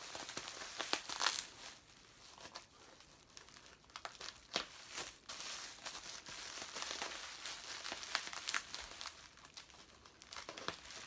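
Plastic bubble wrap crinkling and rustling as it is cut open with scissors and pulled apart by hand. Sharper crackles come about a second in, around four and a half to five seconds, and near eight and a half seconds.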